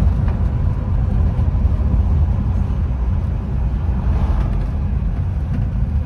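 Steady low rumble of a 1954 Chevrolet driving, heard from inside the cabin: engine and road noise as it rolls down a steep hill.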